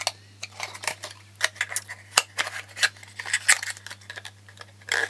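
Small paperboard washi-tape boxes being handled: quick irregular clicks, taps and crinkly rustles of thin card as a tape roll is slipped into its box and the flaps are folded shut.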